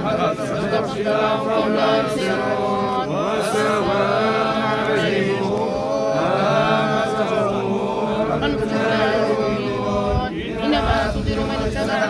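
Many men's voices chanting together in unison: a collective Quran recitation, the lines drawn out and rising and falling in pitch.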